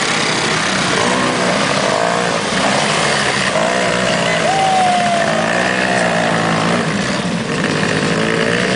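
ATV engine running, its pitch rising and falling as the throttle is worked.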